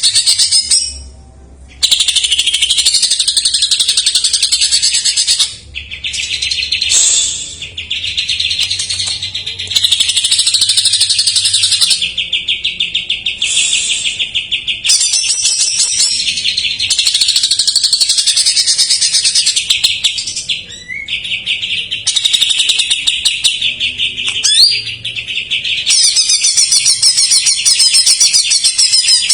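Green leafbird (cucak ijo) singing loud and almost without pause: rapid chattering phrases and fast rattling trills that change every few seconds, a song laced with mimicry of other songbirds.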